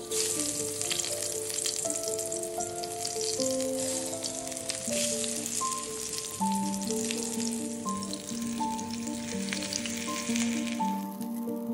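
Spice-coated eggplant slices sizzling and crackling in hot oil in a frying pan, starting suddenly as the first slice goes in and fading away about eleven seconds in.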